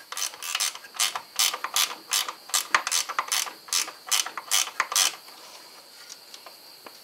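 Short stubby ratcheting wrench clicking in quick back-and-forth strokes, about three a second, as it tightens the power steering pump's adjusting bolt to tension the serpentine belt. The strokes stop about five seconds in.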